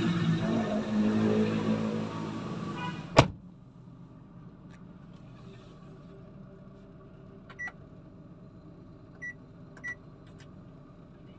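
Mitsubishi Mirage's 1.2-litre three-cylinder engine turning over on the starter with a low drone, cut off by a sharp click about three seconds in. After that there is only a faint steady hum, with three short high beeps near the end.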